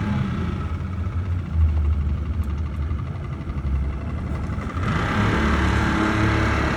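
An engine running steadily with a low rumble, growing louder and harsher about five seconds in.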